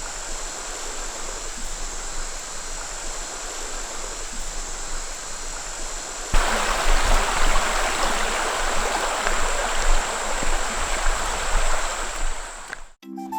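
Rushing water running steadily. It jumps abruptly louder about six seconds in and cuts out briefly near the end.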